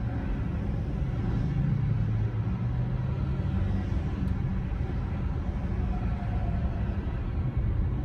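Steady low rumble of a car's engine and tyres heard from inside the cabin while driving slowly in heavy freeway traffic.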